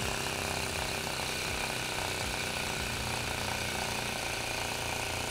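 A model flame licker (vacuum) engine running at speed: its piston, valve and flywheel make a rapid, even mechanical clatter that holds steady throughout.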